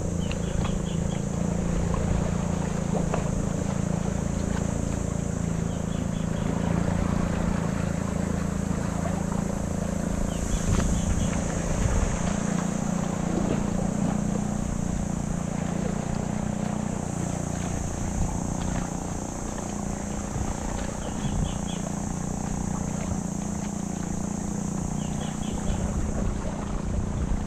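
Boat engine running steadily at constant speed, with a low, even hum and wind rushing across the microphone.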